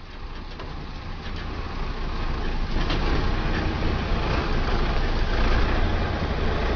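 Logging truck's diesel engine running under load as it tows an empty log trailer, a steady low rumble that grows louder over the first few seconds.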